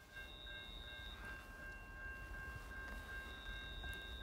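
Low, faint rumble of a diesel grain train approaching from a distance, with several thin, steady high-pitched tones above it, one of them cutting in and out.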